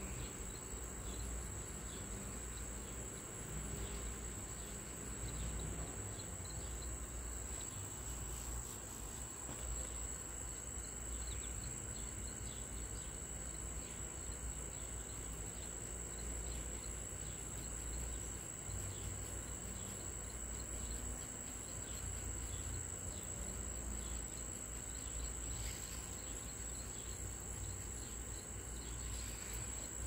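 A cricket trilling without a break, one steady high-pitched note, over a low background rumble.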